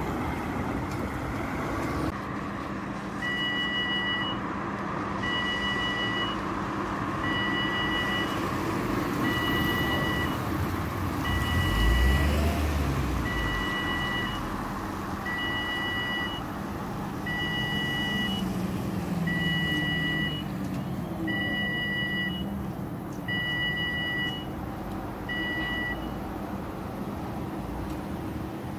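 Level crossing warning alarm sounding a short, high electronic beep about every two seconds over the hum of waiting traffic; the beeping stops a few seconds before the end, once the barriers are down across the road. A heavier vehicle rumbles past about twelve seconds in.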